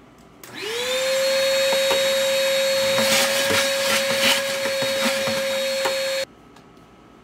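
Shop vac switched on, its motor whining up to speed and then running steadily while sucking hole-saw cuttings out of a plastic bucket, with scattered rattles of debris going up the hose. It shuts off abruptly near the end.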